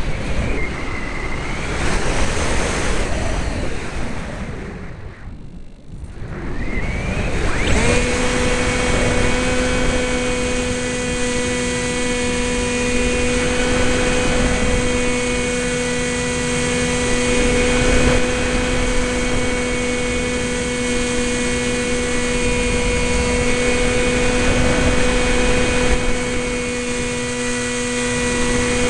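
Sky Surfer RC glider's electric motor and propeller running, with a rush of air over the onboard camera. The sound wavers and drops briefly about six seconds in. From about eight seconds the motor settles to a steady whine at constant pitch.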